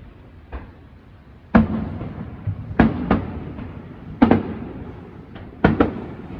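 Aerial firework shells bursting: about ten sharp booms at uneven spacing, some close together, each fading in a low rumbling echo.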